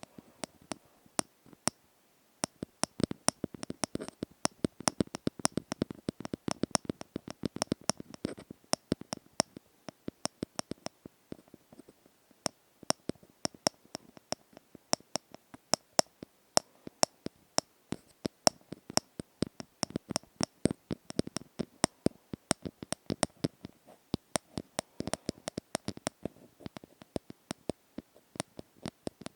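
Close-miked ASMR tapping: a fast, uneven run of crisp taps and clicks, several a second, with a few short lulls.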